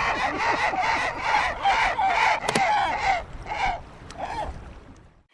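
A flock of gulls calling: many short, overlapping calls that thin out after about three seconds and fade away before the end, with one sharp click about halfway through.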